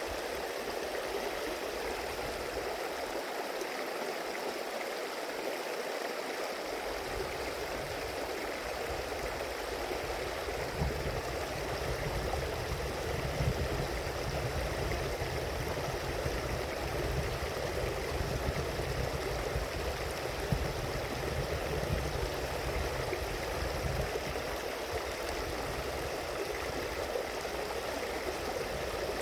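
Stream water flowing, a steady rush with no break. A low rumble joins about seven seconds in and fades out near the end.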